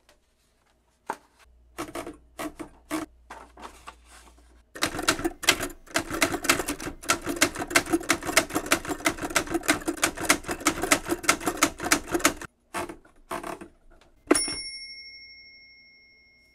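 Vintage manual typewriter being typed on: a few scattered keystrokes, then a fast, steady run of key strikes for several seconds, then a few more. Near the end comes one bell ding that rings out and slowly fades.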